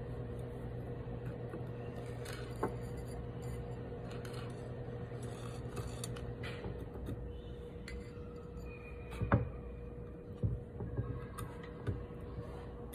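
Small clicks and taps of steel tweezers against a jeweller's bench block, scattered, the loudest about two-thirds of the way in and a few lighter ones after it, over a steady electrical hum.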